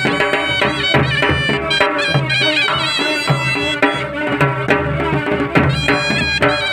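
Traditional Pahari folk music: a reed pipe plays a wavering, ornamented melody over a steady beat of dhol drums.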